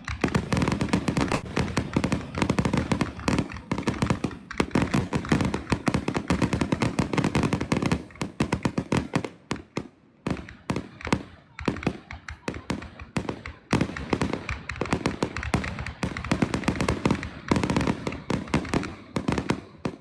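Fireworks going off in rapid, dense crackling volleys, thinning to scattered pops about halfway through before building up again.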